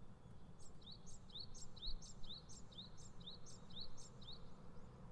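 A bird calling in the background: a series of about eight short, evenly spaced high chirps, roughly two a second, starting just under a second in and stopping at about four and a half seconds, over a faint low hum.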